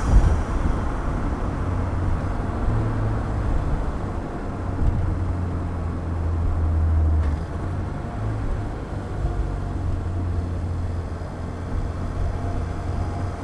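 2015 Ford Fiesta ST's 1.6-litre turbocharged four-cylinder engine, fitted with a cold air intake, running at low, fairly steady revs with a deep drone. There is a sharp thump right at the start, and the engine note eases slightly about seven seconds in.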